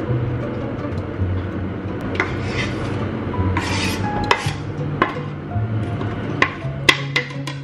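Kitchen knife scraping and tapping diced onion off a wooden chopping board into a frying pan, with several sharp knocks of the blade and board on the pan. Background music with a steady bass line plays underneath.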